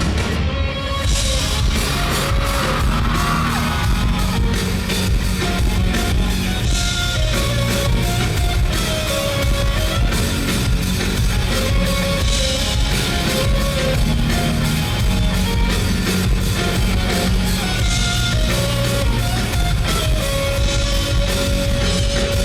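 Live rock band playing at full volume in a large hall: drums, bass and electric guitar with a melodic lead line over them.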